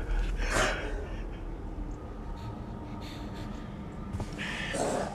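A person gasping and breathing hard, with one sharp breath about half a second in and another near the end.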